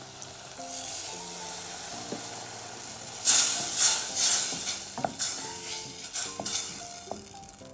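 Warm milk hitting a hot pan of butter-fried onion and flour, sizzling. From about three seconds in, a wooden spoon stirs it through with quick scraping strokes, about two a second.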